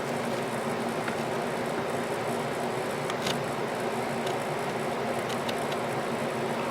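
Steady hiss with a low hum underneath and a few faint clicks.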